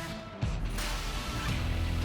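Soundtrack music: guitar-driven rock with a steady, repeating beat.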